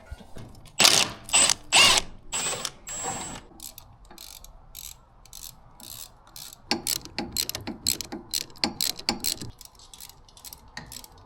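Ratchet wrench working on the car's suspension and brake bolts: a few loud bursts of ratcheting with a thin high whine about one to three seconds in, then a quick run of ratchet clicks from about seven to nine and a half seconds in.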